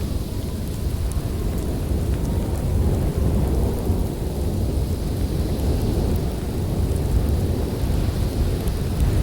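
Snowstorm ambience: a steady deep rumble of wind with a faint hiss above it, swelling slightly about three seconds in.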